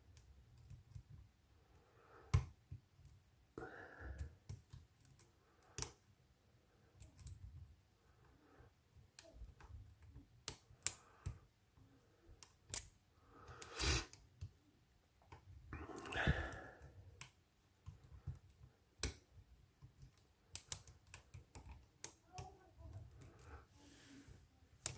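Sparse, irregular small clicks and ticks of a short hook pick working the pins of a Stanley laminated steel padlock, held under heavy top-of-keyway tension from a pry bar. A few brief soft rustling sounds come between the clicks.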